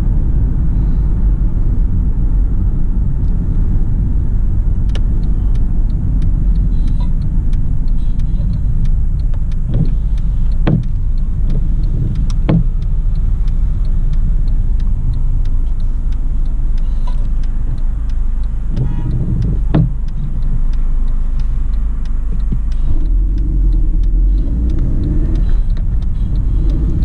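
Mercedes-Benz C180 CGI with its 1.8 turbo petrol engine, driving, heard from inside the cabin as a steady low rumble of engine and road noise. A few short knocks come through, twice in quick clusters.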